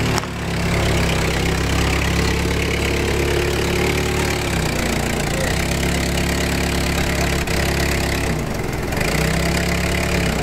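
LPG-fuelled Yale forklift engine running, its speed shifting a couple of times as the forklift is driven.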